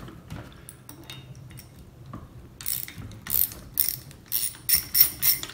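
Hand socket ratchet clicking as it backs out a long through-bolt from the end of a trolling motor housing. It starts with faint handling noise, then a quick run of sharp ratchet clicks from about two and a half seconds in.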